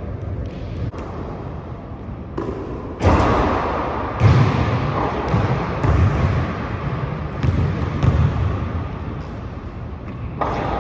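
Basketball bouncing on a hardwood gym floor and hitting the rim and backboard during shooting, a string of irregular thuds over steady background noise.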